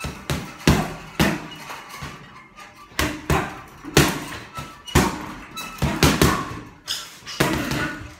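Gloved punches landing on a hanging heavy bag, a dozen or so sharp thuds in quick combinations, often two close together, about a second apart, with a short pause around two seconds in.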